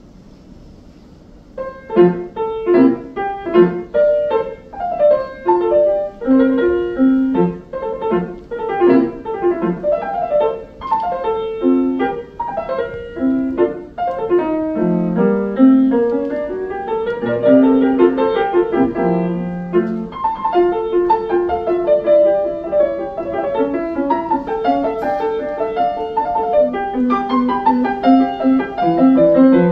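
Yamaha grand piano played solo: a classical piece with quick, separate notes, beginning about two seconds in after a brief hush.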